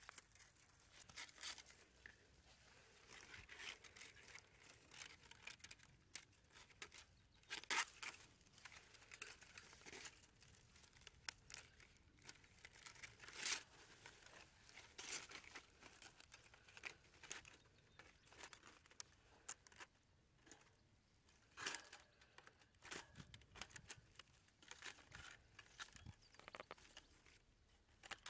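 Woven bamboo fish traps being handled and fitted together on dry grass: faint, irregular rustling and crackling, with a few sharper scrapes.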